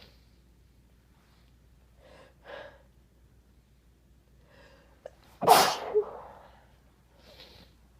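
A person sneezing once, loudly and suddenly, about five and a half seconds in, after a few short breaths drawn in beforehand.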